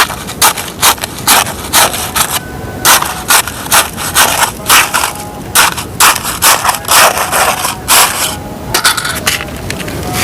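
White dirt being scraped in repeated short, crisp strokes, about two a second, with a couple of brief pauses.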